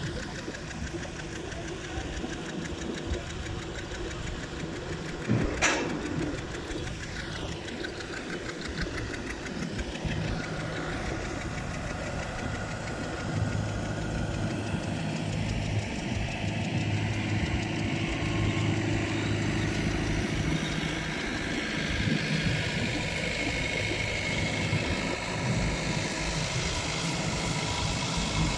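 Diesel engines of heavy construction machinery and trucks running steadily, with a sharp knock about five and a half seconds in. The engine hum grows stronger in the second half.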